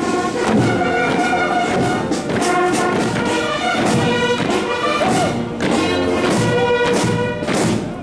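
Brass band playing a military march, with regular thuds on the beat.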